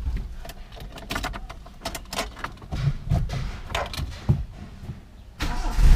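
Scattered clicks and knocks, then near the end a carbureted car engine with a manual choke cranks and starts from cold.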